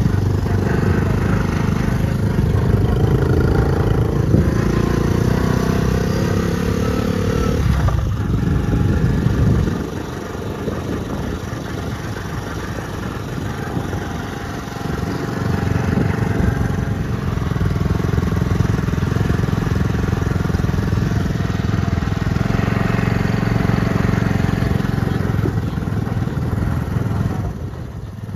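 Motorcycle engine running, its pitch shifting now and then. It is quieter from about ten to fifteen seconds in, then loud again.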